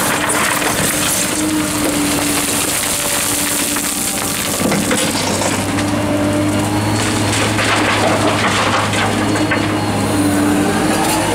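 Liebherr R944 excavator's diesel engine working hard under hydraulic load, with a steady crunching and clattering of gravel and stones as the bucket digs into the pile and the load tips into the steel bed of a dump truck. A deeper steady engine note comes in about halfway through.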